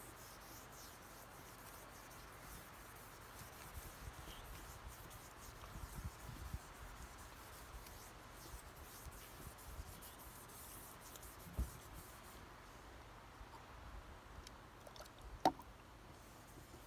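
Faint rubbing and handling of a steel rifle barrel being worked over with a cotton cloth. There is a dull knock about two-thirds of the way in and a sharp click near the end.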